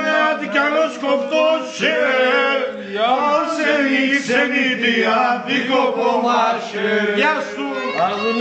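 Several men's voices singing a song together, the sung lines rising and falling and running on without a pause.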